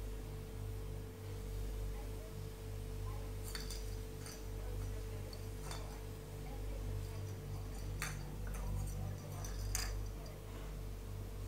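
A steady low hum with a few short, sharp clicks and clinks spread through, about five of them, the strongest a little past the middle.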